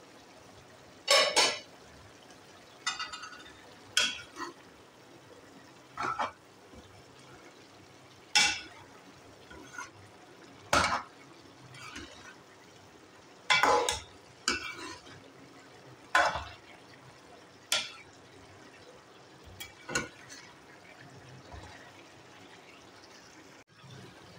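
Metal spoon stirring diced pumpkin and meat in an aluminium pot, clanking and scraping against the pot in sharp, separate strokes every one to two seconds.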